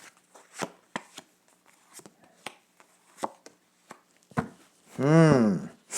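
Tarot cards being handled and laid down: scattered light clicks and taps of cards on a table. About five seconds in, a man gives a short hummed "hmm" whose pitch rises and then falls.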